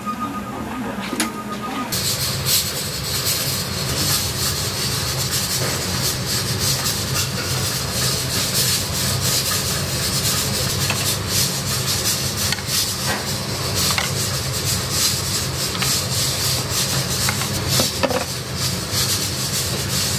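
Busy commercial kitchen noise: a steady low rush and hiss full of small clicks and clatter from utensils and bowls being handled. For the first two seconds an electronic beeping repeats rapidly, then the kitchen noise comes up suddenly.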